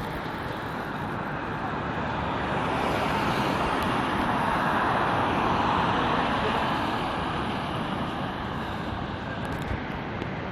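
A car passing by on the street, its tyre and engine noise swelling for a few seconds and then fading away.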